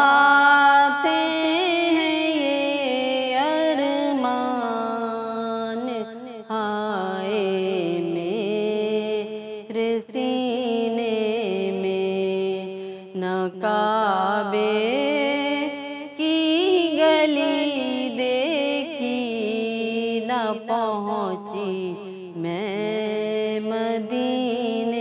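A woman's solo voice chanting a naat, the Urdu devotional poem, in long melodic phrases that hold and bend each note, with short breaks between phrases.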